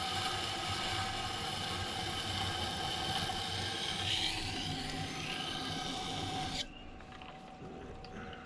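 Knife blade grinding against the stone of a wet sharpening system, a steady scraping hiss as the edge is run along the stone. About two-thirds of the way through the grinding stops abruptly as the blade comes off, leaving a quieter steady hum from the machine.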